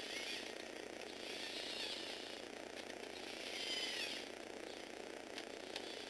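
Electric motor and plastic gear train of a Lego Technic four-wheel-steering model whirring steadily, with a higher gear whine that swells and bends in pitch three times as the steering swings the wheels.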